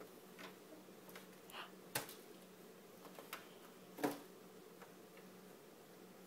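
A baby's hands tapping and patting a plastic high-chair tray while picking up cereal: a few light taps, with the two sharpest about two seconds in and about four seconds in. A faint steady hum lies underneath.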